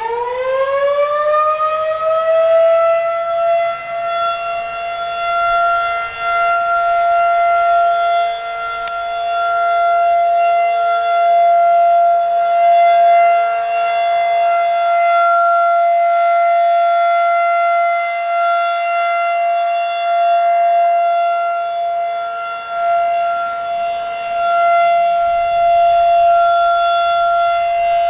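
Federal Signal 2001-SRNB rotating outdoor warning siren sounding its steady alert tone, a 30-second alert test. It finishes climbing to full pitch in the first couple of seconds, then holds one steady wail, a bit lower pitched than usual for a 2001, its loudness swelling and dipping as it turns.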